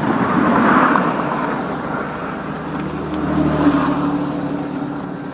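Motor vehicles passing by. The engine noise swells about a second in and again near four seconds, the second pass carrying a low engine hum.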